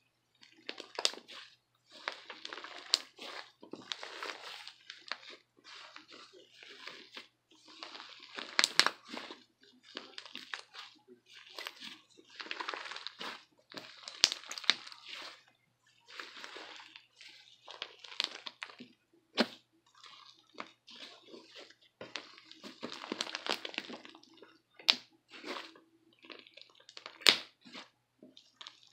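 Fluffy slime mixed with crunchy foam being squished and squeezed by hand close to the microphone: irregular wet crackling and crunching, broken by sharp pops.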